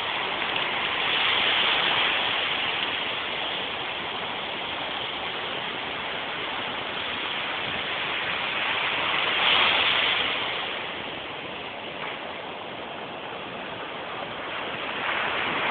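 Ocean surf washing on a beach: a steady rushing hiss that swells as waves break, once near the start and again about ten seconds in.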